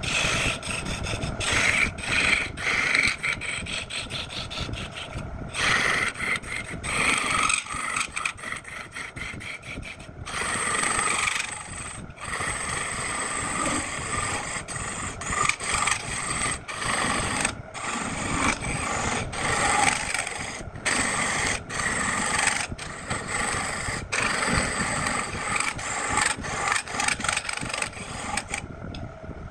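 Turning tool cutting into a spinning wooden spindle on a wood lathe: a rough scraping, rasping sound that surges and breaks off again and again as the tool is pressed into the wood and eased off.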